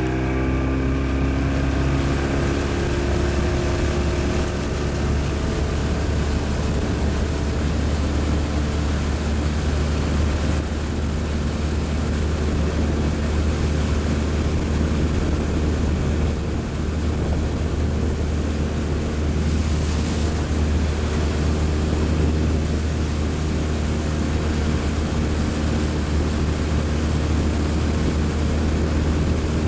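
Motorboat engine running steadily at speed. Its pitch rises in the first few seconds as it speeds up, then holds even.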